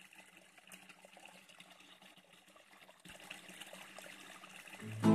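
Faint flowing stream water trickling, a little louder from about three seconds in. Right at the end an acoustic guitar starts playing, much louder.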